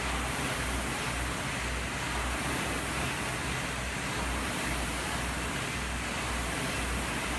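Air-resistance rowing machine's fan flywheel whooshing steadily, swelling and fading with each rowing stroke, over a low rumble.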